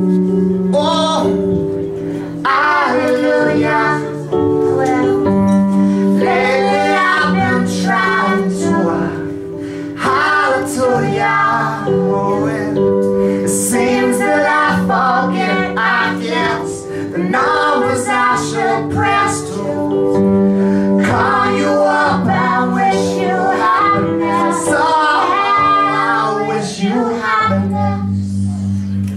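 Live song: voices singing over an instrumental accompaniment of long held chords, the chord dropping lower near the end.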